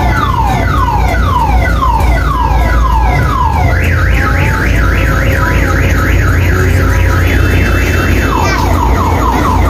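Electronic multi-tone siren sounding from the mini train: falling sweeps about two a second, switching about four seconds in to a fast up-down warble, then back to falling sweeps near the end. A steady low rumble runs underneath.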